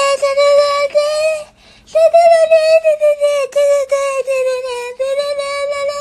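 A high, nasal, voice-like tune on held notes, in three phrases with short breaks about one and a half seconds in and about five seconds in.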